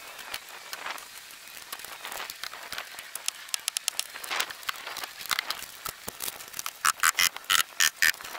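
A hammer driving nails, a quick series of sharp strikes with a metallic ring, loudest over the last second and a half; before that, softer clicks and rustling of boards and siding being handled.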